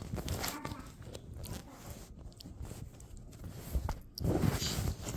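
Rustling and small clicks of plastic dolls and their parts being handled, getting louder about four seconds in.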